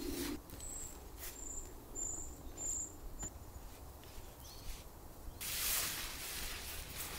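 A large tarp rustling as it is handled and pulled over a fallen tree, with a few light knocks, the rustling loud from about five seconds in. Early on, a small bird gives about five short, very high chirps.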